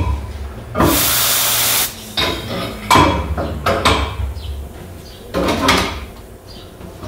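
Compressed air from a tyre-shop air hose hissing through an inflation needle as a deflated Decathlon Tarmak basketball is pumped up: one loud hiss of about a second near the start, then several shorter bursts of air and clicks from the needle and valve, over a low steady hum.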